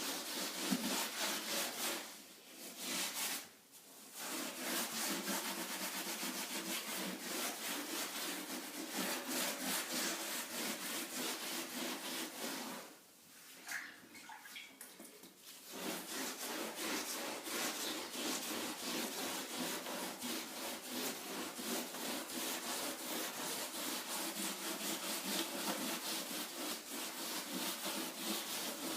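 Steel wool and water scrubbing a soft pine floor in rapid back-and-forth strokes, working up softened paint-stripper residue to neutralize it. The scrubbing stops briefly twice.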